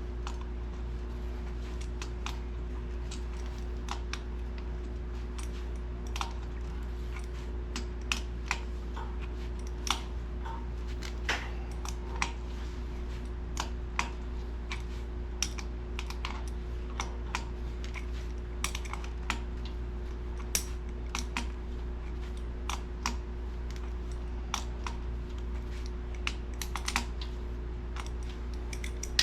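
Irregular light clicks and taps of metal as fittings and hose parts are worked loose on the bottom of an old sandblaster tank, with no regular rhythm, over a steady low hum.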